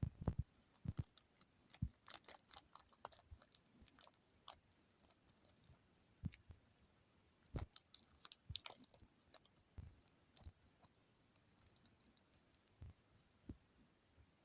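Handling of a Pokémon trading-card booster pack and its cards: soft crinkling of the foil wrapper and light clicks of cards being slid through by hand, in scattered clusters with a few light thumps.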